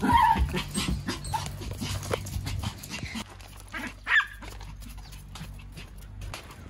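Pomeranians yipping and whining excitedly while being led out on leashes, with a short sharp yip right at the start and a louder one about four seconds in. Light clicks of paws and steps run through it.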